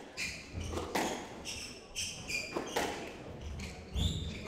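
Squash rally: several sharp cracks of the ball off rackets and court walls at irregular intervals, the loudest about four seconds in. Short high squeaks of court shoes on the wooden floor come between the hits.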